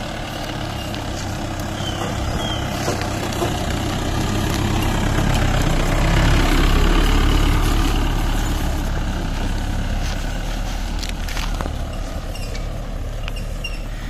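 Jeep engine running with a steady low rumble that grows louder to a peak about halfway through and then eases off.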